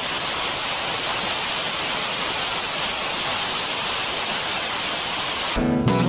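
Television static: a steady, even hiss of white noise, strongest in the upper range. Near the end it cuts off and blues guitar music comes in.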